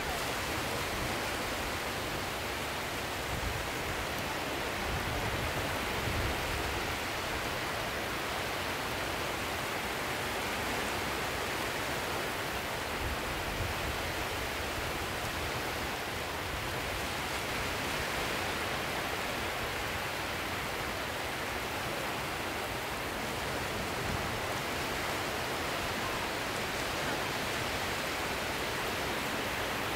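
Sea surf: a steady rushing wash of water that rises and falls slightly.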